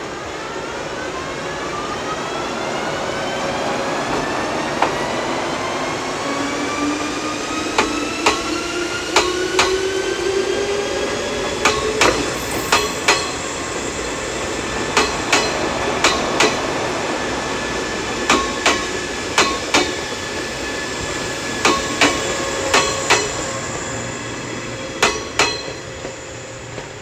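JR 381 series electric train pulling away, its motor whine rising in pitch over the first ten seconds or so and then holding steady. Sharp wheel clicks, mostly in quick pairs, come as the bogies cross rail joints.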